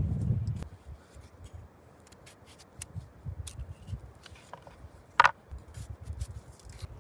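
A large kitchen knife cutting slits into a raw potato held in the hand: a series of short, crisp cutting clicks, the sharpest about five seconds in. A low rumble during the first half-second.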